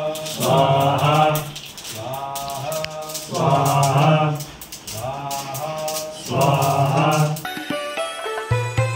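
A man's voice chanting havan mantras in short repeated phrases, each about a second long with brief pauses between them. About seven and a half seconds in, the chanting cuts off and sitar music starts.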